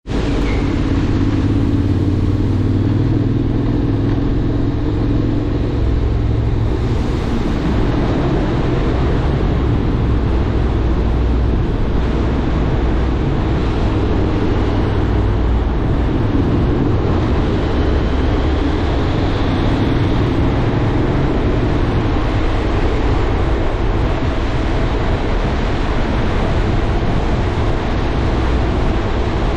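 Honda X-ADV motorcycle under way: a steady rush of wind over the microphone with the engine's low drone beneath.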